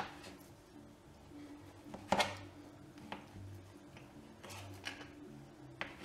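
Kitchen knife cutting through a large ripe papaya on a plastic cutting board: a few scattered knocks and scrapes of the blade against the board, the loudest about two seconds in.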